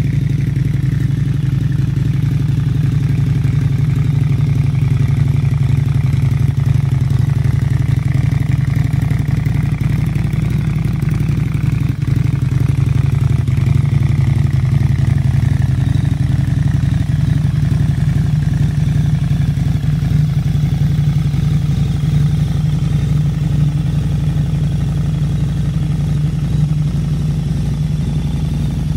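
Custom Harley-Davidson V-Rod's liquid-cooled V-twin idling steadily through a short custom exhaust.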